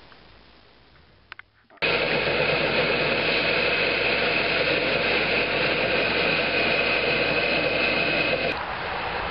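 A vehicle engine running steadily, with a high whine running through it. It cuts in suddenly at full level about two seconds in and drops noticeably lower about a second before the end.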